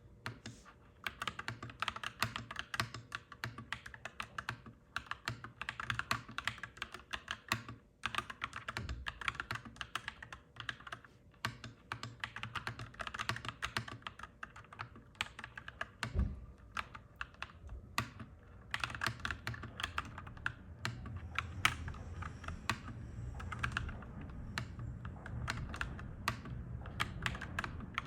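Clacky mechanical keyboard typing in quick runs of keystrokes broken by short pauses. A low rumble builds underneath in the last third.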